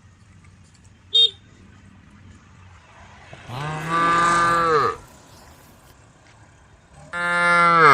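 Cows mooing: two long, loud moos, each falling in pitch at the end, the second running on past the end. A brief high-pitched sound about a second in.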